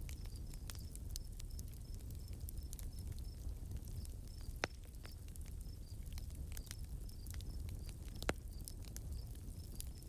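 Outdoor nature-sound ambience: a quick, repeating high chirp over a low rumble, with scattered clicks throughout. Two sharper clicks stand out, one a little before the middle and one near the end.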